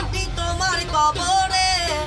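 A man singing, accompanying himself on a plucked ektara, the one-string drone lute, over a low, steady rumble from the bus.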